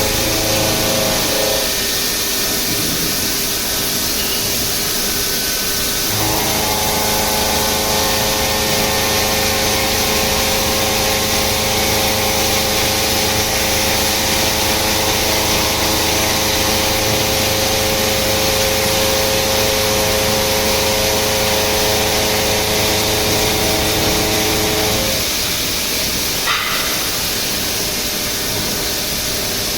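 CNC machine cutting a hydraulic pump housing: a steady hiss like coolant spray under a set of steady whining machine tones, which fall away briefly about two seconds in, return around six seconds and stop about five seconds before the end.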